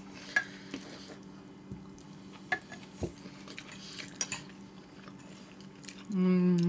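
Forks clinking and scraping on plates while eating, a handful of sharp clicks spread out over several seconds. Near the end someone hums a long, level 'mmm'.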